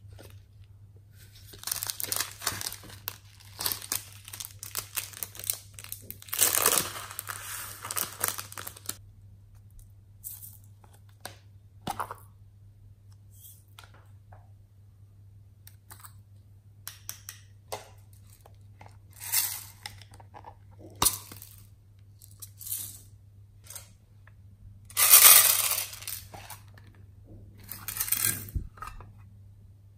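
Plastic containers and toys being handled, and glitter and sequins being shaken out of a small plastic shaker onto slime in a glass tray, making crinkly rattling in several bursts with scattered clicks. The loudest burst comes near the end, under a faint steady hum.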